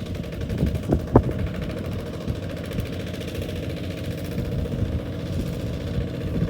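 Tractor engine running steadily at low revs, with a sharp knock or clank about a second in.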